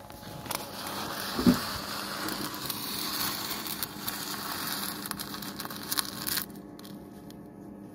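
Aerosol spray can hissing steadily as insecticide is sprayed onto a swarm of winged ants, starting about half a second in and cutting off suddenly after about six seconds. A single knock about a second and a half in is the loudest moment.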